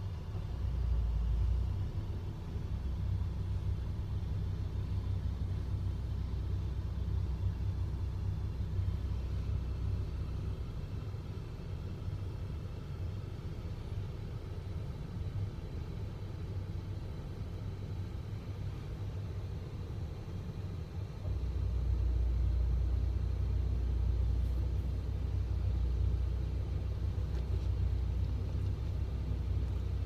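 Low, steady rumble of a parked car's idling engine and air conditioning, heard from inside the cabin. The rumble swells louder about two-thirds of the way through.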